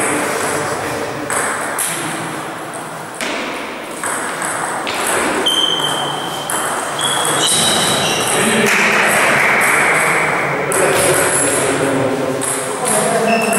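Table tennis rally: the ball ticking back and forth off bats and table in a string of quick, sharp clicks, with background voices in the hall.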